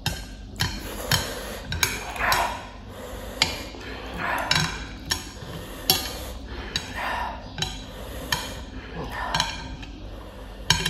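Chopsticks clicking and scraping against a plate while noodles are picked up: sharp clicks about once a second, with chewing noises between them.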